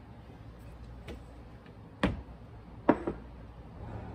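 Small kitchen items handled and set down on a countertop: a faint tick, then two sharp knocks about a second apart.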